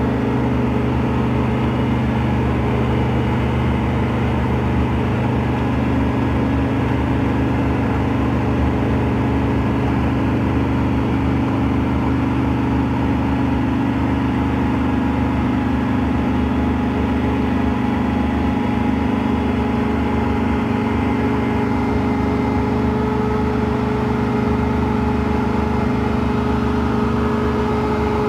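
Wirtgen asphalt cold-milling machine at work, milling off the road surface: a loud, continuous diesel engine drone with a few steady tones that barely changes throughout.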